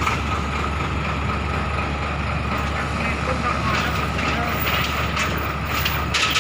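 Excavator's diesel engine running steadily with an even drone.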